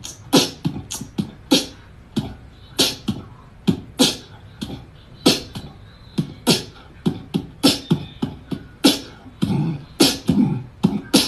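A percussive, beatbox-like beat: sharp crisp clicks and hissing hits over low thumps, about three a second in an uneven rhythm. The low thumps crowd together near the end.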